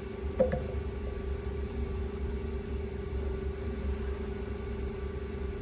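Steady electrical hum with a low rumble under it, from the homemade adjustable power supply running under load while it charges a lithium cell; a light click about half a second in.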